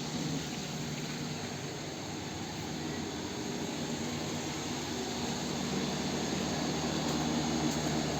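Swimming pool heat pump running: a steady fan whoosh over a low, even hum, growing a little louder in the last few seconds.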